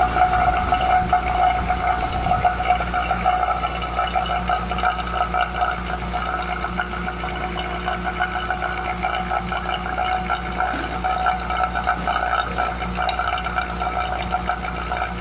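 Steady gurgling flow of liquid over a low, even electrical hum.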